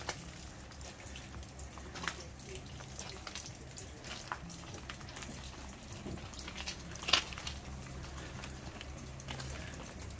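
Wind rumbling on the microphone, with scattered light ticks and taps and one sharper tick about seven seconds in.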